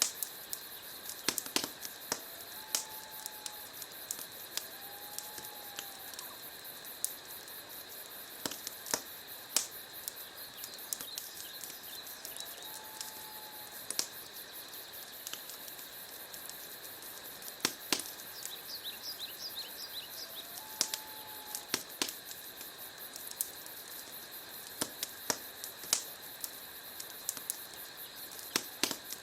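Wood fire in a fireplace crackling, with irregular sharp pops over a steady hiss. A few faint short whistles come and go.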